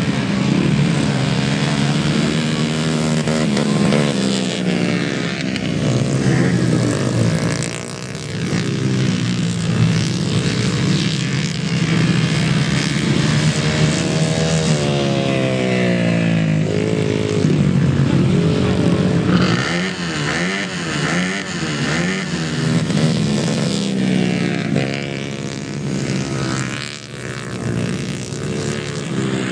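Several grasstrack racing motorcycles' single-cylinder engines revving hard as they race round the grass circuit. The pitch rises and falls over and over as each rider opens and shuts the throttle through the bends and straights.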